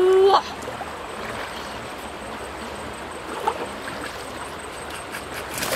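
Shallow river flowing steadily past the bank, with a short rising call in the first half second and a splash right at the end.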